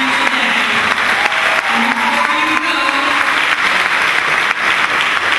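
Audience applause: many hands clapping steadily, with voices talking underneath.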